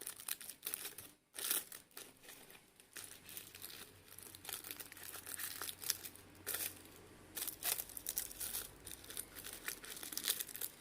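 Paper confetti rolls being pulled out of a small party popper: irregular crinkling and rustling of paper.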